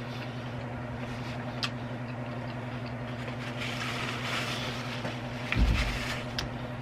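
Paper napkin rustling as hands are wiped, over a steady low hum. A soft low thump, as of something set down on the table, comes about five and a half seconds in.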